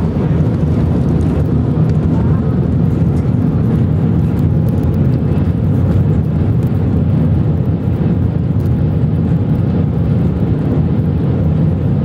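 Steady, loud low rumble inside an Airbus A380's passenger cabin as the airliner rolls along the runway after landing.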